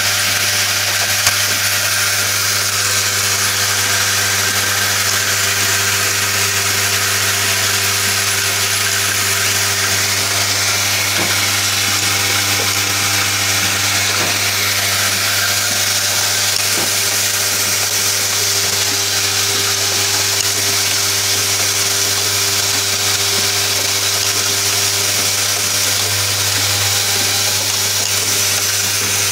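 Automated MCB box clamping and screwing assembly machine running steadily: a low constant hum under a wide steady hiss, with a single click about a second in.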